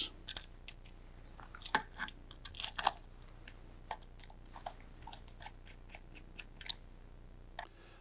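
Faint, irregular small clicks and scrapes of a hand screwdriver driving the screws that hold a metal switch plate onto a valve positioner, busiest in the first three seconds.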